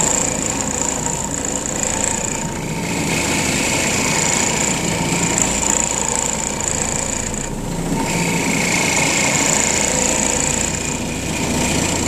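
Trinity CM low-moisture carpet cleaning machine running loudly on carpet, a steady mechanical drone that swells and dips slightly a few times.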